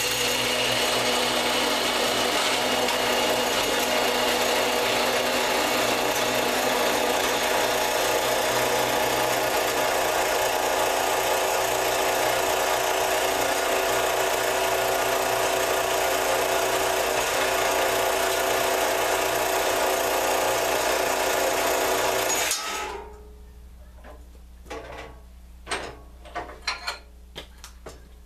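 Central Machinery 1 HP 4 x 6 in. horizontal metal-cutting band saw running steadily with its blade cutting through 1-inch steel angle iron. The saw noise cuts off suddenly about 22 seconds in, followed by a few sharp clicks and knocks.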